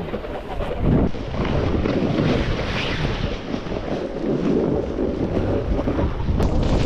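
Snowboard sliding and carving over packed and powder snow, its edge hissing and scraping, mixed with wind rushing over the camera microphone from the ride's speed.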